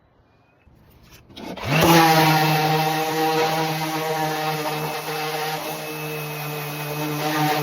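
A woodworking power tool starts up about a second and a half in, its motor quickly reaching speed, then runs steadily at a constant pitch as it works through the wooden pizza peel blank.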